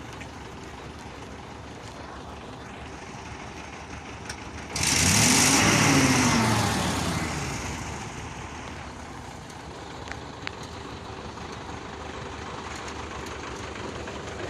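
Truck engine running steadily. About five seconds in, a loud hiss starts suddenly together with a tone that rises and then falls, fading away over the next few seconds.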